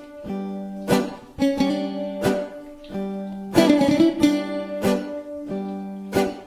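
Bouzoukis playing an instrumental piece: bright plucked chords struck every half second or so, each left to ring before the next.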